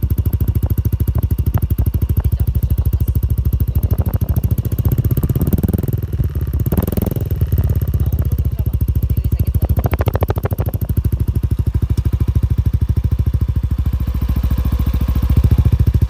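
Yamaha NMAX scooter's single-cylinder four-stroke engine idling through a JVT power pipe aftermarket exhaust, recorded close to the tailpipe: a steady, even run of exhaust pulses.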